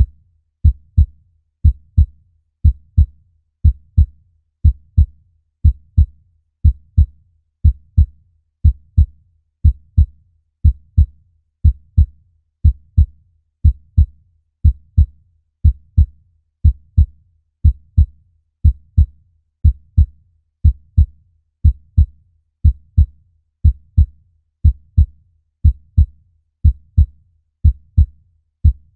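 Human heartbeat: a slow, steady lub-dub of two low thuds, repeating evenly about once a second.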